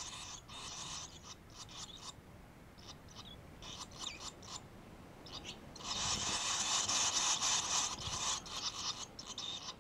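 Barn swallow nestlings begging for food at the nest: rapid, high-pitched chittering in short bursts, swelling into a dense, louder chorus about six seconds in.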